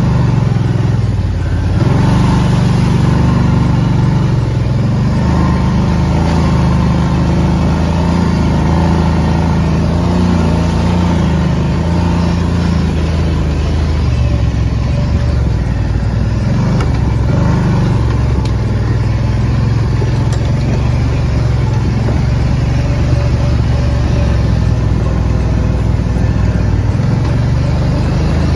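Kawasaki Brute Force ATV engine running steadily while riding a dirt trail, its pitch dropping a little about halfway through.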